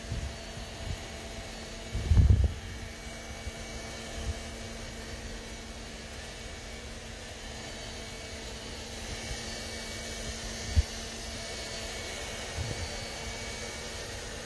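ILIFE A12 Pro robot vacuum running, a steady fan and motor hum. A few low thumps break in, the loudest about two seconds in.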